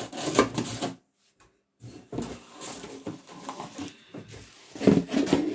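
Rustling and handling of packaging as a large glass vase is unwrapped and lifted out, with a louder spell of handling noise near the end.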